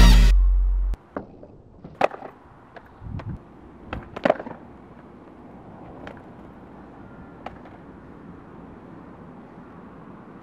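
Music cuts off about a second in, leaving a skateboard on tarmac: a series of sharp clacks as the deck is popped and lands, loudest around two and four seconds in. A few lighter clicks follow over a faint steady outdoor background.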